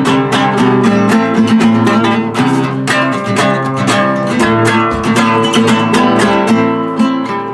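Instrumental music: acoustic guitar picked in quick, even notes, with no singing.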